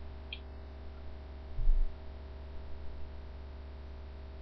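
Steady electrical mains hum. A dull low thump comes about a second and a half in, and a faint short click shortly before it.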